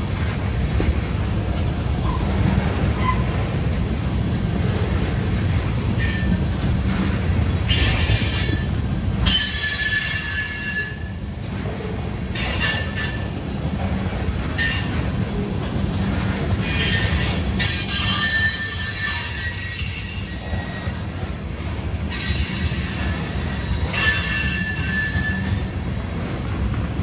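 Loaded ethanol tank cars of a freight train rolling past on the rails, a steady low rumble of wheels on track. High-pitched squealing from the wheels comes and goes in stretches of a second or two.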